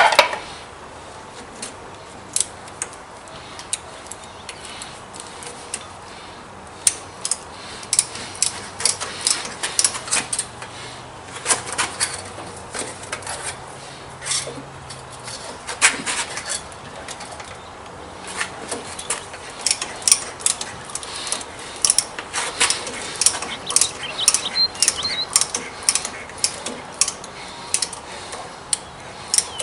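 Hand-tapping a drilled hole for a lathe DRO scale mount: a tap wrench turning the tap with many short, irregular metallic clicks, sparse at first and coming thick and fast from several seconds in. A single sharp metal knock right at the start is the loudest sound.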